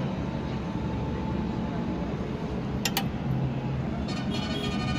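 Steady background traffic noise with a low hum. About three seconds in come two sharp clicks close together, and about a second later a vehicle horn starts sounding and keeps going.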